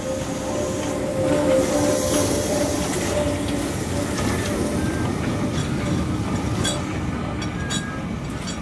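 Swiss SBB C 5/6 steam locomotive No. 2978 and its tender rolling past close by, a steady rumble of wheels and running gear with steam hiss. A few sharp clicks come near the end.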